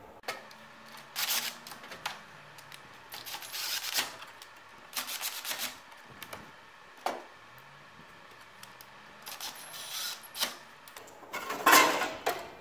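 Removing a snowmobile's battery: short bursts of clatter as a cordless drill/driver works the battery hold-down and the tool and parts are handled, with the loudest clatter near the end as the battery is lifted out of its tray.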